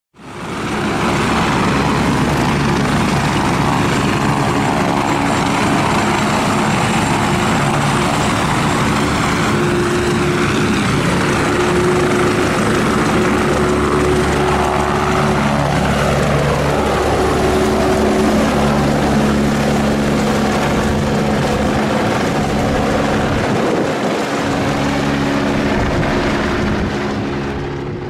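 Military helicopter taking off: loud, steady rotor and turbine noise with several held engine tones that shift in pitch partway through. The sound rises within the first second.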